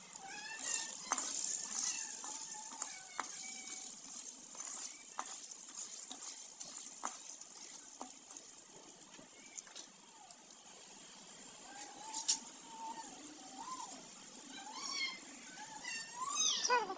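Popcorn kernels sizzling in ghee in an aluminium pan as they heat, with scattered sharp ticks. A cat meows a few times, mostly near the end.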